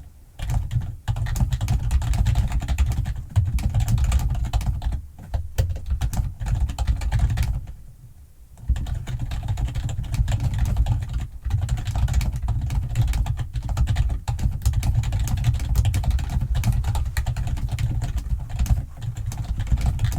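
Fast, continuous typing on a computer keyboard, dense clattering keystrokes with a heavy low thud to each, pausing briefly about eight seconds in.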